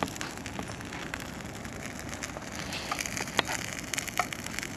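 A brush bonfire crackling, with scattered sharp pops over a steady noise.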